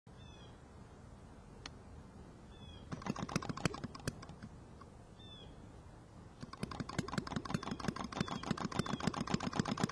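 Small non-compression, spark-ignition model internal combustion engine, the Pioneer, being started by hand: about three seconds in it clatters briefly, then from about six and a half seconds it catches and runs with a rapid, steady ticking beat that grows louder. Birds chirp now and then in the background.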